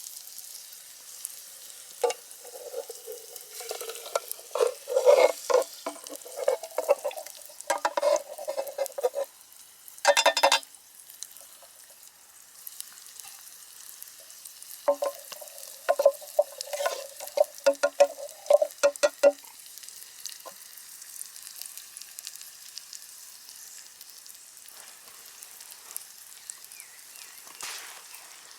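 Food sizzling in a German M31 aluminium mess tin over a campfire, with a utensil stirring and scraping against the tin in two spells of quick strokes, about two seconds in and again about fifteen seconds in, and a short louder scrape around ten seconds.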